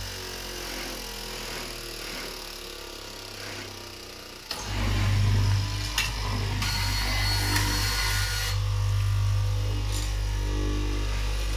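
Electric straight-knife fabric cutting machine: its motor hum is low at first, then the machine comes back on with a sudden rise about four and a half seconds in and runs with a steady hum. For about two seconds in the middle, a harsher, higher rasp with a thin whine joins the hum as the upright reciprocating blade cuts through the stacked fabric layers.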